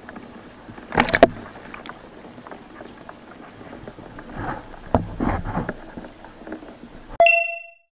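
Editing sound effects laid over an animated on-screen caption: a swish about a second in, a few soft swishes and taps, then a bright chime near the end that cuts off into dead silence.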